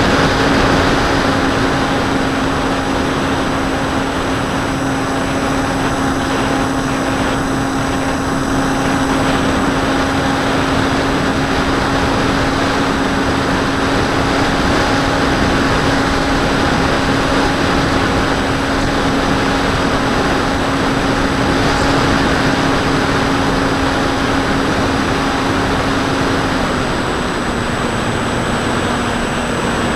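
A Turnigy D2826-10 1400 kV brushless outrunner motor drives an 8x5 propeller on a Bixler 2 foam plane in flight, heard from on board as a steady propeller drone over a constant rush of air noise. The drone's pitch steps slightly lower near the end as the throttle eases.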